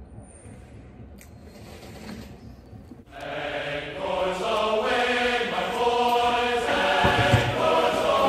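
Quiet room tone, then about three seconds in a choral chant with long held notes starts suddenly and carries on, loud.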